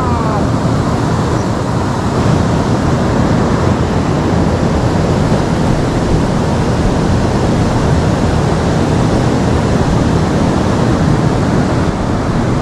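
Steady rush of river water flowing over rocks, an even noise strongest in the low and middle range.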